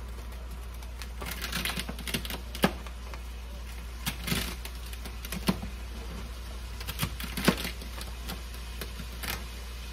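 A kitchen knife chopping celery stalks on a plastic cutting board: irregular knocks of the blade striking the board, some sharper than others. A steady low hum runs underneath.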